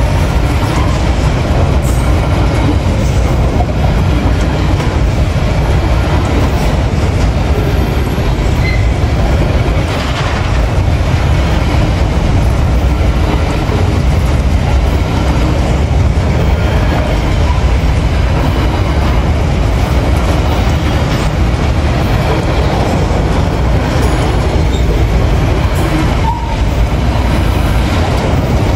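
Freight train of covered hopper wagons rolling past close by: a loud, steady rumble and rattle of steel wheels on the rails, with a few sharper knocks.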